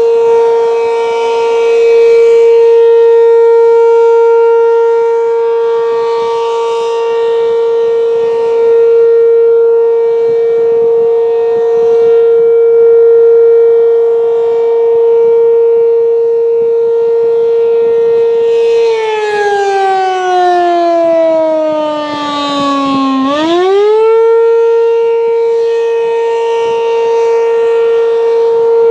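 ACA P-15 outdoor warning siren sounding a steady alert tone, its loudness swelling and fading every few seconds. About 19 seconds in, the pitch slides down for around four seconds, then climbs quickly back up to the steady tone.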